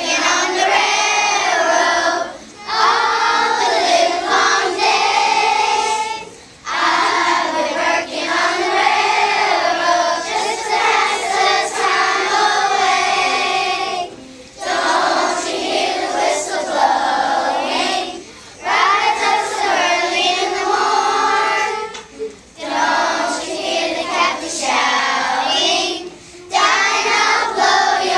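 Children's choir singing a song, in phrases of about four seconds separated by brief pauses for breath.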